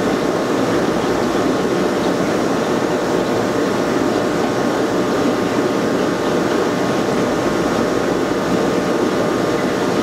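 Aquarium filtration running: a steady hum and rush of the filters and aeration moving water and air, with faint steady tones in the hum.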